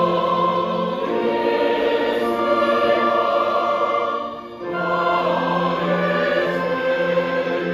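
Mixed church choir singing a slow Korean hymn in sustained chords, accompanied by a small orchestra. The sound dips briefly a little past the middle, a breath between phrases, then the choir comes back in.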